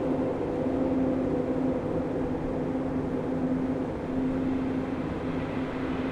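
Ambient sleep soundscape: a steady low rushing noise bed under a soft low hum that swells and fades about once a second.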